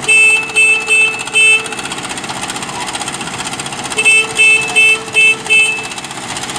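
Loud electronic beeping in two quick runs, four beeps and then, a couple of seconds later, five more, at about two or three a second. It sounds over the steady running of a JCB backhoe loader's diesel engine as it works its backhoe arm.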